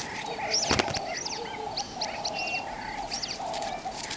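Several birds chirping and whistling in short, high calls over a steady mid-pitched hum, with one sharp click about three-quarters of a second in.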